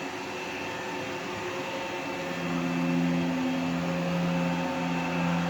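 Tefal Explorer Series 20 robot vacuum cleaner running with a steady whirr. A little over two seconds in, a deeper hum joins it and the sound gets somewhat louder, with two brief dips in the hum.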